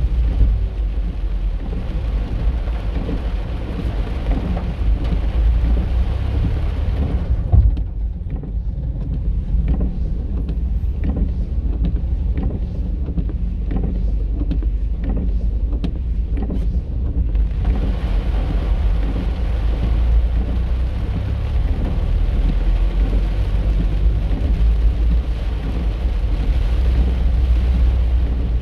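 Heavy rain on a moving car, heard from inside the cabin: a steady low rumble of the car and wet road under an even hiss of rain. For about ten seconds in the middle the higher hiss thins out.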